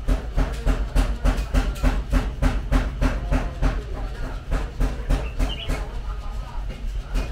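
A forging hammer striking hot steel, a wrench being drawn out into a dart, in a steady even rhythm of about four to five blows a second.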